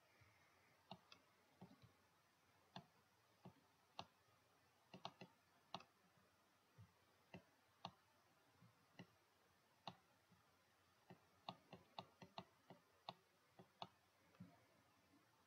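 Faint computer mouse clicks, about two a second at irregular intervals.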